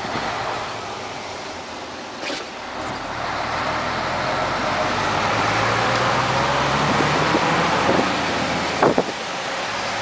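Mercedes-Benz Actros 1848 truck's V6 diesel, heard from inside the cab while driving, getting louder a few seconds in as it pulls harder. There are brief knocks about two seconds in and near the end.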